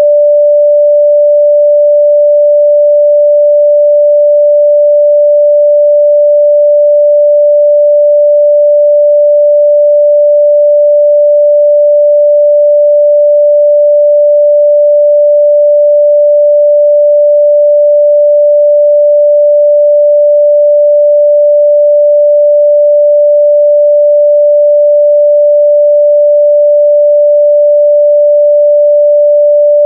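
A continuous pure sine-wave test tone at 588 Hz, one steady pitch held at a constant loud level.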